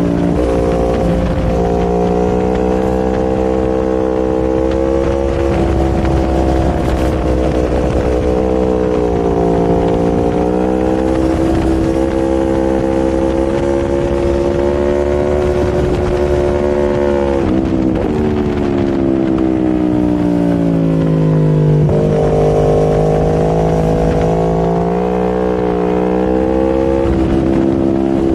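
Aprilia Tuono V4 motorcycle's V4 engine running hard around a race track, its pitch rising and falling as the rider opens and closes the throttle. The note dips briefly about eighteen seconds in, falls to its lowest a few seconds later, then climbs again.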